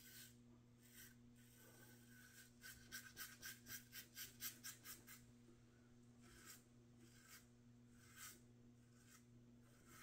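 Gem G-Bar single-edge safety razor scraping through lather and stubble in short, faint strokes: a quick run of about a dozen strokes between two and five seconds in, with a few single strokes before and after.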